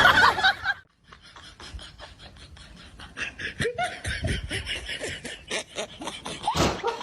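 Laughter in quick, repeated bursts, after a loud, jumbled outburst in the first second.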